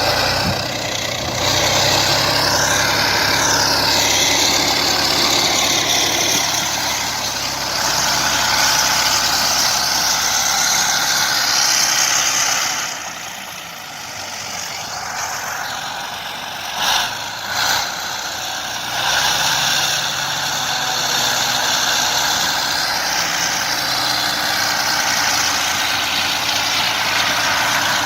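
Diesel engine of a heavy crawler bulldozer running steadily under load. The level dips about halfway through, and two sharp knocks follow shortly after.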